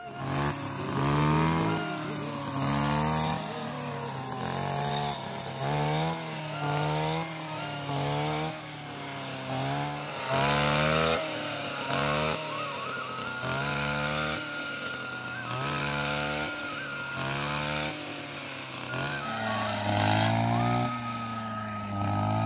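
Small two-stroke brush cutter engine revving up and down about once a second while cutting grass.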